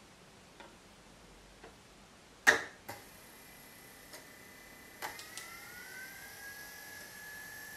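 Several clicks as a CD is set onto the spindle of a homemade CD player built from an old CD-ROM drive, the loudest about two and a half seconds in. About five seconds in, the drive's spindle motor spins the disc up with a rising whine that levels off into a steady whine.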